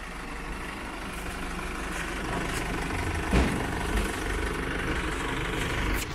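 Flatbed tow truck's engine running steadily while the car is let down its tilted bed, with one short clunk about three and a half seconds in.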